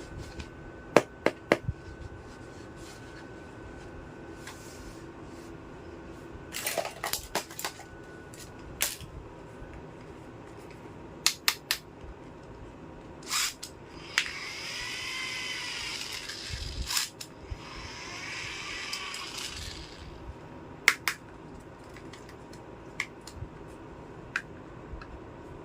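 Small plastic toy kitchen pieces being handled, with sharp clicks and taps as they are knocked together and set down. Midway there are two longer scraping stretches of about two seconds each.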